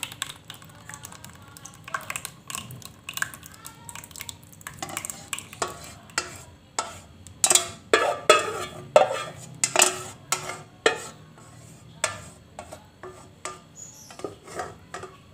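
Plastic rice paddle scraping and knocking against a stainless steel saucepan while thick agar pudding mixture is scraped out and poured into a plastic mould. It makes a run of sharp knocks and scrapes, loudest in the middle.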